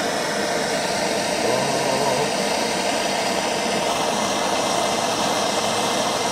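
Handheld gas torch burning with a steady hiss as its flame heats a seized nut whose stud spins instead of unscrewing, to free it.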